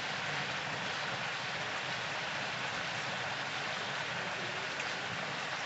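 Whole turkey deep-frying in a pot of hot oil: the oil bubbling and sizzling in a steady crackling hiss.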